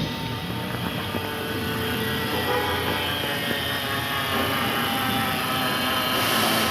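Honda Accord engine idling with a steady whine from the serpentine belt drive, the noise the mechanic traces to a worn belt tensioner with play in it.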